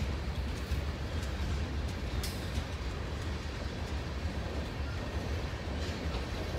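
Freight train's tank cars and hopper car rolling past: a steady low rumble of steel wheels on rail, with a few sharp metallic clicks, the clearest about two seconds in.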